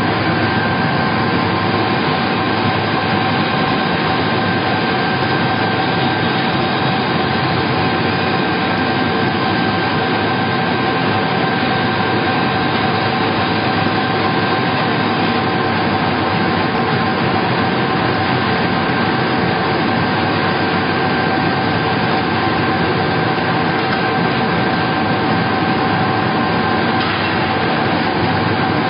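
Vertical wood pellet mill production line running steadily: a loud, even machine din with a constant whine of several fixed pitches.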